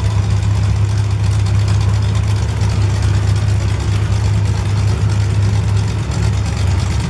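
Engines of full-size demolition derby cars idling and running together, a loud, steady low drone with light revving.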